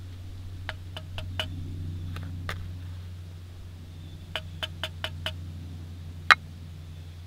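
A carved wooden spoon tapping and clicking against a metal tin and a titanium pot while ground coffee is scooped. There are runs of quick light taps, about five in a row past the middle, and one louder knock near the end. A steady low hum runs underneath.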